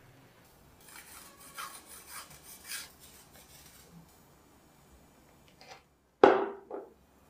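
A fine rasp grater scraping over a topping in a run of quick strokes, several of them louder. About six seconds in comes a sharp clink of a plate set down on a hard surface, the loudest sound, then a smaller second knock.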